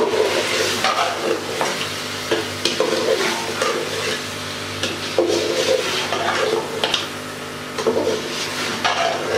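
Slotted metal spoon scraping and stirring chicken, potatoes and peas in a large aluminium pot as they sizzle in oil and masala, with repeated scrapes against the pot. This is the frying (bhuna) stage of cooking the meat before water is added.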